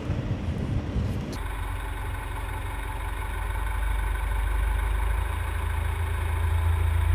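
Motor vehicle engine running steadily, a low hum. About a second and a half in the sound changes suddenly from a rougher mix to a smoother, even hum that grows a little louder.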